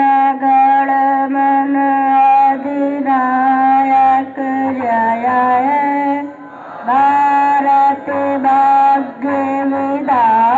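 A single high voice singing a slow melody of long, steady held notes, phrase after phrase, with a brief pause about six seconds in.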